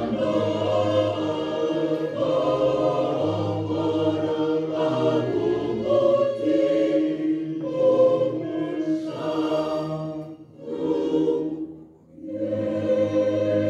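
Choir singing in long sustained phrases with short breaks between them, dropping away briefly near the end before the singing resumes.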